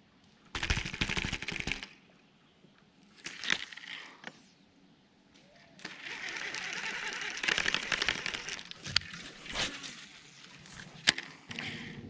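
Baitcasting rod and reel being worked: bursts of rushing line and spool noise full of fast clicking, with a few sharp knocks of handling. Near the end a boat motor starts a steady hum.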